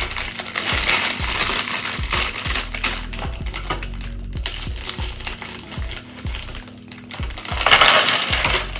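Background music playing over the rustle and crinkle of plastic LEGO parts bags being handled. The crinkling is loudest at the start and again near the end.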